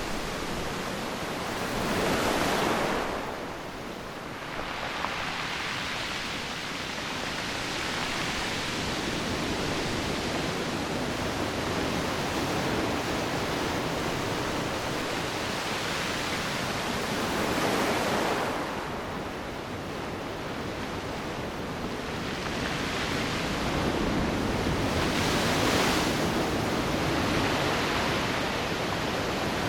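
Sea surf washing on the shore: a continuous rush of water, with waves swelling and breaking a couple of seconds in, again just past the middle, and near the end.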